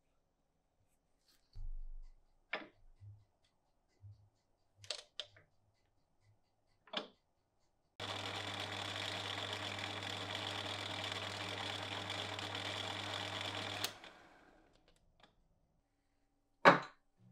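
A lathe spins the wooden wrench handle. Its motor runs steadily for about six seconds, then switches off with a click and runs down. Before it there are a few soft taps, and near the end comes one sharp knock.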